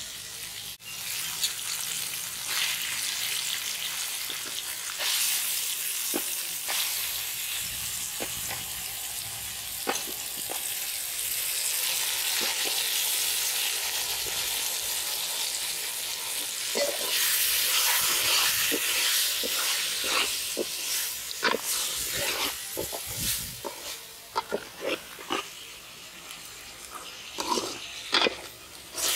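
Onion, green chilli and raw goat lung and liver pieces sizzling in oil in a large aluminium kadai, stirred with a steel ladle that scrapes and clinks against the pan. The sizzling is loudest in the middle and dies down near the end, where the ladle's clinks stand out.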